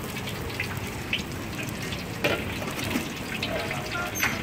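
Liquid hissing in a hot iron wok, with a few sharp clicks of a metal spatula against the wok.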